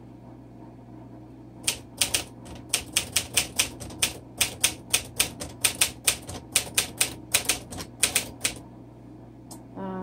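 1951 Smith Corona Silent manual typewriter being typed on: a run of sharp key strikes, about four a second, starting a couple of seconds in and stopping shortly before the end, with one more click near the end.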